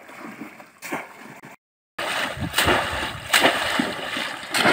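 Shallow pond water splashing and sloshing as bamboo bell-shaped fish traps are plunged down into it by people wading, with several sharp splashes. The sound cuts out briefly about a second and a half in and comes back louder.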